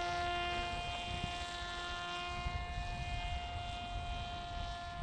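Parrot Disco fixed-wing drone's electric propeller motor whining steadily in flight, a high, even buzz that slowly grows fainter.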